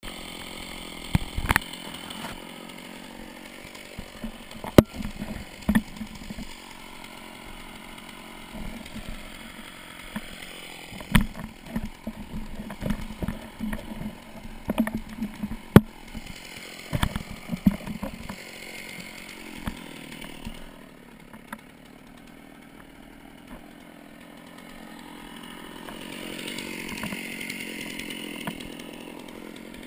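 Chainsaw running at low throttle while branches snap and brush past, giving irregular sharp cracks and knocks over the steady engine sound. The saw grows a little louder near the end.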